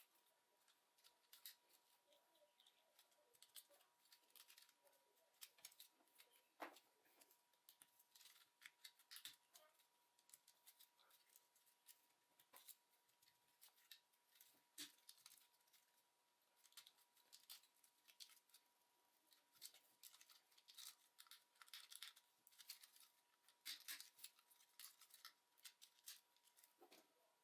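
Faint, irregular clicks and scrapes of small plastic and metal parts being handled while a computer mouse is taken apart, over a faint steady high tone.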